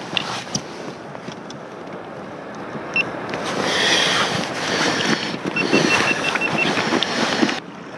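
Rustling and scattered clicks of gear being handled in a kayak's cockpit, getting louder from about halfway through and cutting off suddenly near the end.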